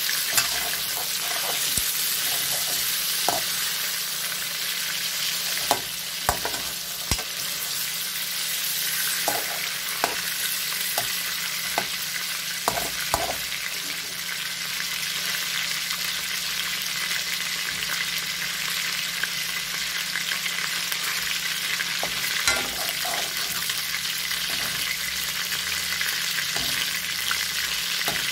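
Chicken pieces lightly frying in hot oil in an aluminium wok, a steady sizzling hiss. Scattered sharp clicks and knocks come from a metal skimmer turning the pieces against the pan.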